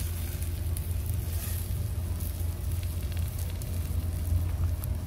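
Skewered cobia steaks and a cast-iron skillet of Brussels sprouts sizzling on a grate over the coals of a wood fire, with faint crackles from the fire. A steady low rumble runs underneath.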